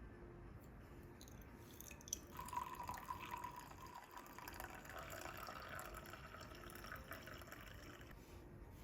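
A few light clicks, then liquid poured into a cup for several seconds, its pitch rising as the cup fills.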